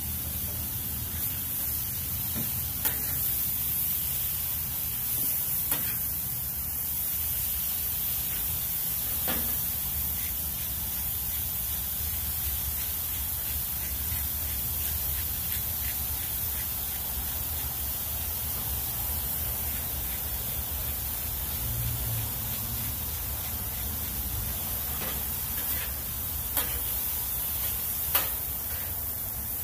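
Steak and vegetables sizzling on a hot flat-top griddle, a steady hiss, with a few sharp clicks of metal spatulas scraping and tapping on the griddle surface, the loudest near the end.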